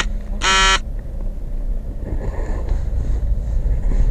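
A short, buzzy electronic beep near the start, the last of a series of three, then the low rumble of a car's engine and road noise heard inside the cabin, growing slightly louder.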